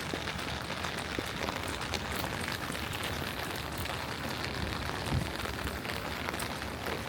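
Steady rain: an even hiss dotted with many small drop ticks.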